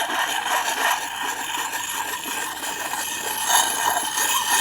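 Fine side of a two-sided axe sharpening puck rubbed in small circles along the steel edge of a Liam Hoffman farm axe: a steady, gritty scraping of stone on steel as the burr is honed off.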